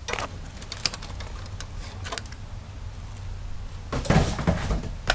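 Clicks and knocks of parts being handled on a dismantled window air conditioner unit, its sheet-metal housing and wiring being worked by hand over a steady low hum. About four seconds in comes a louder, half-second clatter with dull thuds.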